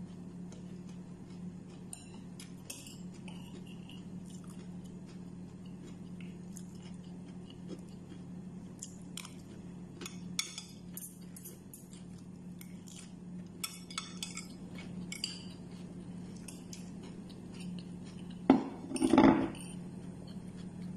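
Metal spoon clinking and scraping against a ceramic plate as salad is scooped up, in many short clicks, with some chewing. A steady low hum runs underneath, and a louder thump and rustle comes near the end.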